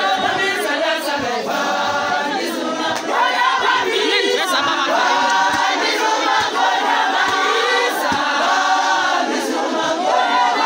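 A large group of women singing a church hymn together in chorus, unaccompanied, with many voices blending.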